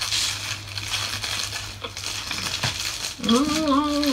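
Plastic snack-cake wrappers crinkling as individually wrapped cakes are unwrapped and handled. Near the end a voice hums a long, wavering note.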